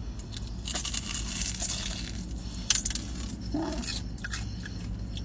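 Crunching as two deep-fried Korean corn dogs, one coated in potato cubes and one in hot Cheetos, are bitten into and chewed. There is a crackly stretch in the first couple of seconds, with one sharp crunch near the middle and a short closed-mouth hum later on.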